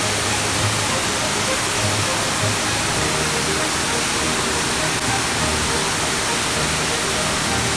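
Steady rushing roar of a large waterfall, with soft background music underneath.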